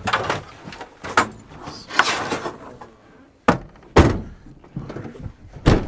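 A series of sharp knocks and clunks, with some rustling handling noise; the loudest two come about half a second apart just past the middle and another near the end.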